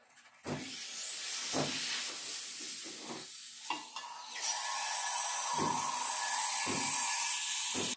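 Steam hissing steadily from the Bambino Plus's four-hole steam wand as it heats a jug of milk. About halfway a steady whistling tone joins the hiss, and there are a few dull knocks of handling.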